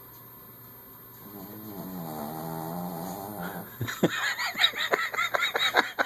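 Sleeping dog giving a long, wavering whine-like groan, then, from about four seconds in, a quick string of short, high yips, about four a second, the sounds of a dog vocalising in its sleep.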